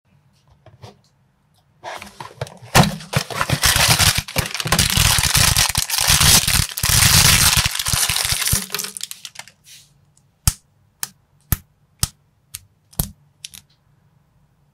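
A small clear plastic parts bag crinkling and being torn open for several seconds, then a string of about seven sharp clicks, roughly two a second, as plastic minifigure pieces are snapped together.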